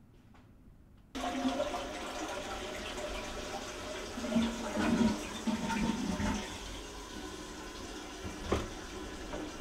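Toilet flushing: a sudden rush of water that starts about a second in and keeps going, with gurgling in the middle and a single knock near the end.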